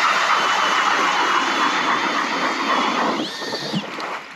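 Power ice auger drilling through lake ice: a steady grinding whine of the auger cutting ice. About three seconds in, it gives way to a brief higher whine and then stops.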